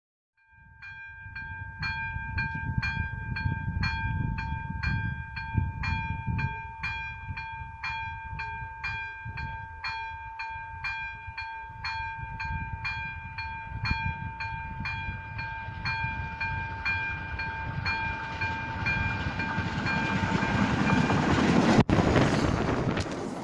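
Steam locomotive 475.111 approaching and then passing close by, its rumble growing to its loudest near the end, with a brief sudden break shortly before the end. Through most of it an electronic level-crossing warning bell rings about three times a second, stopping just before the train passes.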